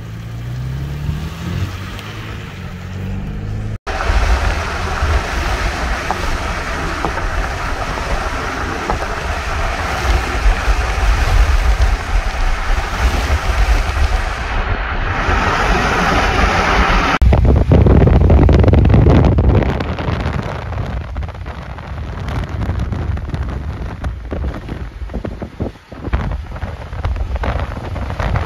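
A car engine rising in pitch as the vehicle pulls away and accelerates, then road noise and wind buffeting the microphone as it drives at highway speed.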